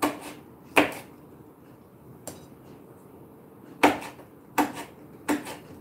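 Kitchen knife knocking on a white plastic cutting board while slicing chili peppers lengthwise: about six short, sharp knocks at uneven intervals, one of them faint.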